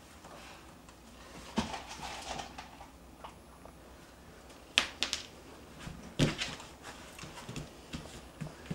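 Scattered short clicks and rustles as a working cocker spaniel puppy takes treats from a hand and shifts about on a lap and tiled floor, with a few louder snaps around the middle.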